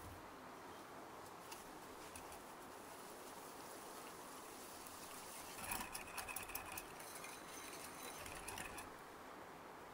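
Wire whisk stirring crushed Oreo cookie crumbs into a wet batter in a glass bowl: soft stirring at first, then from about halfway through a few seconds of rapid clinking of the wires against the glass.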